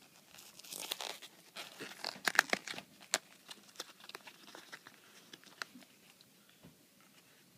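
Product packaging being torn open and handled by hand: crinkling, tearing and sharp crackling snaps, busiest in the first three seconds or so with the loudest snaps just past two seconds, then only a few faint clicks.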